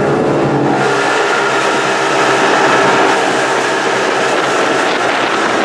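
Fishing boat's engine running steadily while the boat is under way, with a steady rushing noise over it that grows louder about a second in.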